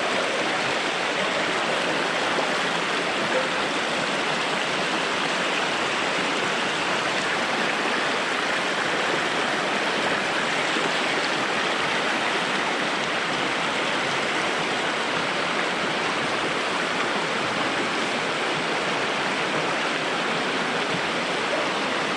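Stream water rushing steadily, a constant hiss of flowing water.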